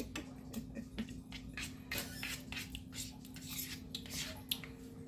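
Light, irregular clinks and clicks of a utensil against dishes, over a steady low hum.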